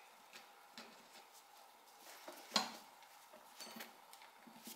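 Faint, scattered small metallic clicks and ticks as a nut and washer are turned by hand onto a threaded steel rod. One sharper click comes about two and a half seconds in.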